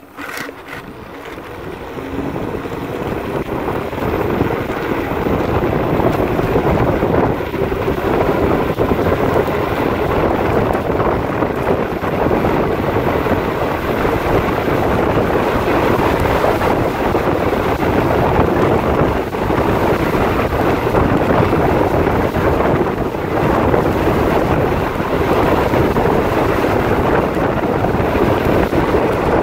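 Wind rushing over the microphone of a Varla Eagle One dual-motor electric scooter as it is ridden flat out in its fastest mode, reaching about 37 mph. The rush builds over the first few seconds and then holds loud and steady.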